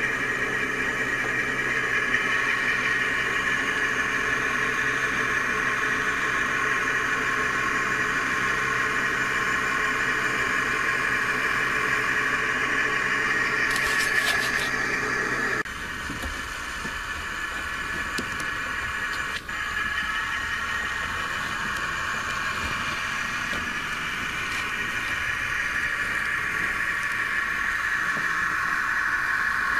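Simulated diesel locomotive engine sound from the DCC sound decoder of an HO-scale GP-38 model, played through a small test speaker that the builder calls not too good. About halfway through, the deeper part of the engine sound cuts off abruptly, leaving a thinner, higher sound.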